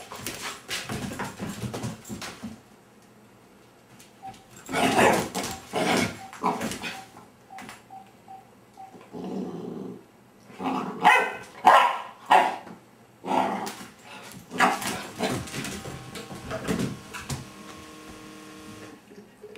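Labrador puppy barking and growling in repeated bursts with short pauses between them, reacting to a vibrating cellphone.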